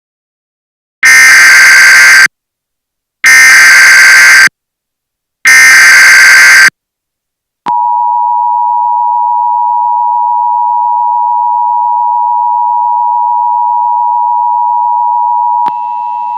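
Emergency Alert System SAME header: three bursts of buzzy digital data tones, each about a second long with a second's gap between them. Then the steady two-tone EAS attention signal, which drops in level near the end. It signals that an emergency alert, here a severe thunderstorm warning, is about to be read.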